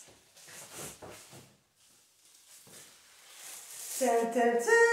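Paper rustling in soft, irregular scrapes as a tissue-wrapped package is drawn out of a paper shopping bag. About four seconds in, a woman's voice takes up a held, sung or hummed note.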